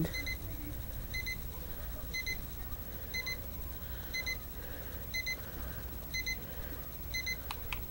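La Crosse Technology digital alarm clock's alarm beeping: a pair of short, high beeps repeating about once a second, "2 beats a second". Two sharp clicks near the end, after which the beeping stops.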